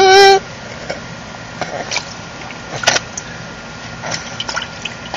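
A baby's short, loud, high-pitched squeal right at the start, followed by scattered light taps and small splashes of water in a shallow paddling pool.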